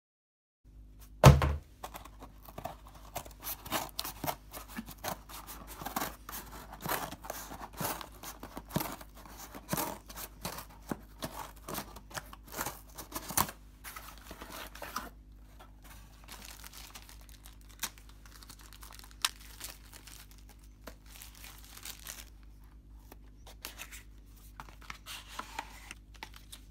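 Cardboard shipping box being torn open and handled, with a sharp thud about a second in and a long run of rips and crackles, then quieter rustling as the inner product box is opened.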